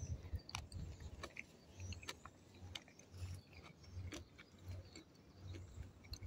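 A person chewing a mouthful of soft, ripe Kadota fig close to the microphone, in a slow, steady rhythm of a little more than one chew a second, with small wet mouth clicks.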